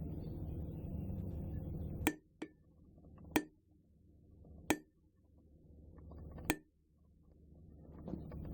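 Hammer struck four times on the face of an NC Tools Knife Maker 70-pound steel anvil. Each blow is a short, sharp clink, and the first is followed by a light tap as the hammer rebounds. The anvil sits on rubber matting, which keeps its ring short.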